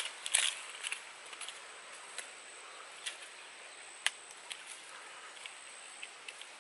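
Light scrapes and taps of a wooden stick and fingers against stones and ash while a roasted egg is raked out of a small stone fire pit: a cluster of scrapes at the start, then a few scattered sharp clicks.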